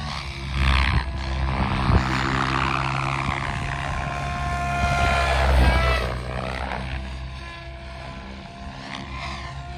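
SAB Goblin 700 electric RC helicopter flying aerobatics: the rotor-blade whoosh and the whine of its brushless motor and drivetrain, swinging up and down in pitch as it swoops past. It is loudest about a second in, with a sharp peak around two seconds and another swell at five to six seconds.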